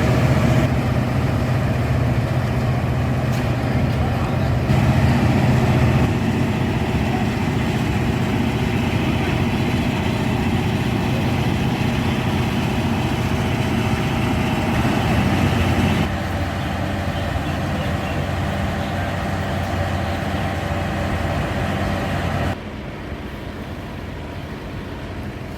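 Diesel engines of a KiHa 183 diesel railcar running with a steady hum. The sound changes abruptly several times, dropping in level about 16 s in and again about 22 s in.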